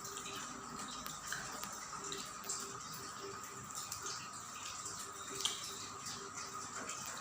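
Close-up eating sounds: chewing with scattered short wet clicks and smacks, the loudest about two and a half and five and a half seconds in, over a steady background hiss.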